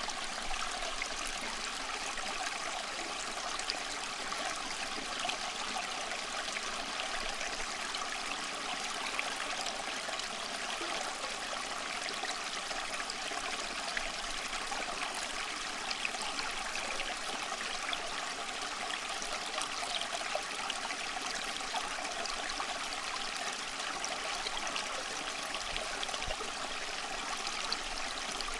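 Steady sound of rushing water, like a flowing stream, running evenly without rising or falling.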